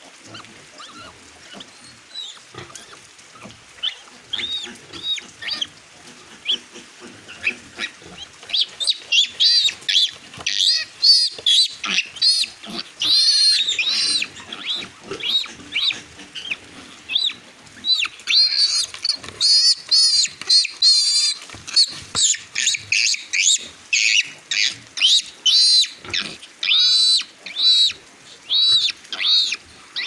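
Newborn piglet squealing over and over in short, shrill squeals as its teeth are clipped with pliers. The squeals are faint and sparse at first, then loud and almost unbroken from about eight seconds in.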